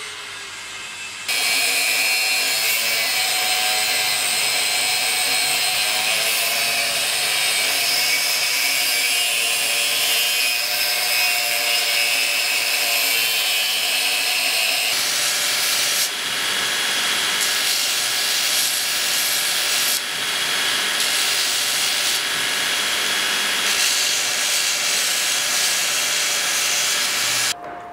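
Angle grinder with a cut-off disc cutting through a steel sword-guard blank clamped in a vise: a loud, steady grinding with a wavering whine. About halfway through, the sound changes to a belt grinder grinding the steel piece, a steady rushing sound.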